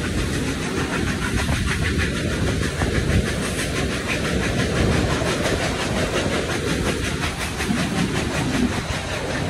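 Steam-hauled passenger train under way, heard from inside a carriage: a steady rumble of wheels on the rails, with the locomotive's exhaust beating quickly and regularly on top.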